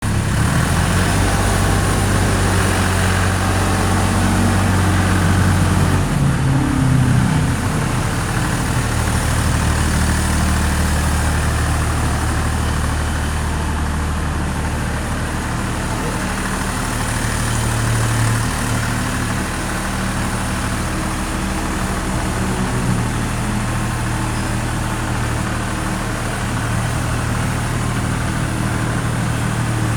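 ZF-20 mini excavator's diesel engine running steadily; about six seconds in the engine note drops and settles at a lower, steady speed.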